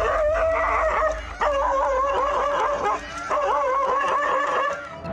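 Dog barking and yelping at a leopard in fast, high-pitched, wavering runs, three of them with short breaks between.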